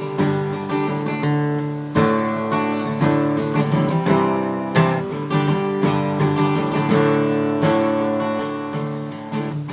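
Acoustic guitar strummed in an instrumental break between sung verses, with chords struck about once a second and left ringing.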